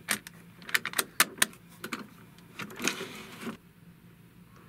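Plastic clicks and clatter of a cassette being pushed into a Hearoid toy robot's built-in tape deck and the deck door closed: a quick run of sharp clicks with a brief scraping rustle about three seconds in.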